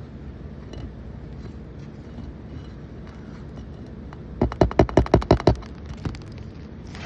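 A hammer rapping about eight times in quick succession, sharp even knocks over about a second, midway through, as a shingle is worked on for a roof repair; a steady low rumble underneath.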